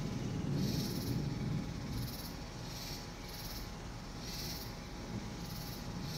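Night insects calling in a steady pulsing rhythm, about two high-pitched calls a second. A low rumble swells in the first couple of seconds, then fades.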